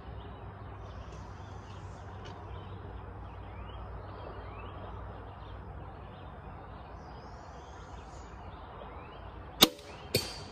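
Songbirds chirping in the background, then near the end a crossbow fires with one sharp, loud crack, and about half a second later the bolt hits the target with a second, weaker smack.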